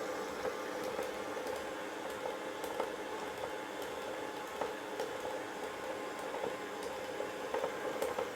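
Stand mixer running steadily on second speed, its creamer beater working flour into creamed butter and sugar to make shortbread dough, with occasional faint ticks.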